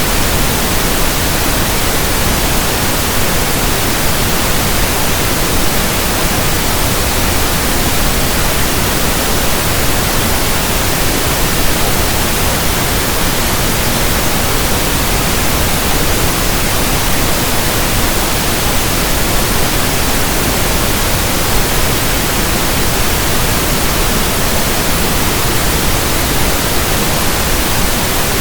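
Steady pink noise: a constant, even hiss across the whole range, loud and unchanging, with no tones or events in it.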